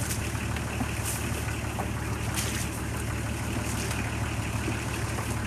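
Tractor engine idling steadily with a low, even hum, with a few short hissing rustles now and then.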